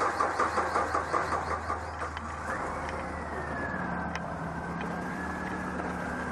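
Car engine just started and running at idle, with an uneven rhythmic pulsing for the first couple of seconds before it settles into a steady idle. A steady whine comes in about halfway through.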